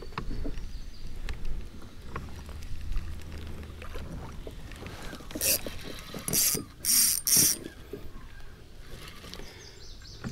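Spinning reel being cranked as line is retrieved, its gears giving a fine, steady ticking. About halfway through come four or five short, louder rustling bursts.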